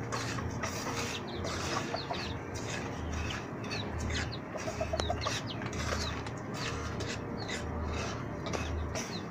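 Chickens clucking, with many short high peeps, over the scraping of a wooden spatula stirring garri in an oily frying pan.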